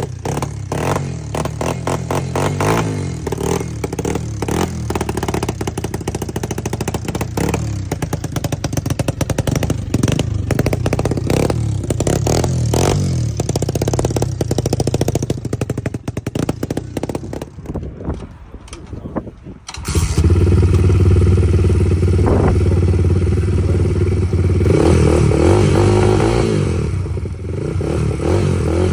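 Dirt bike engine running and revving, its pitch rising and falling. About two-thirds of the way through the sound switches abruptly to a louder, steadier engine note.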